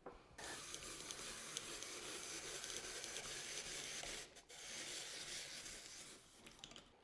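Hand-cranked apple peeler-corer-slicer peeling and slicing a green apple: the blade shaves off the peel while the threaded shaft turns, making a continuous scraping noise. It breaks off briefly about four seconds in and fades near the end.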